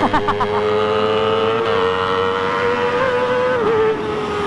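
Sport motorcycle engines held at high revs at speed, the main note climbing slowly, then wavering and dropping slightly about three and a half seconds in, with wind rushing over the bike.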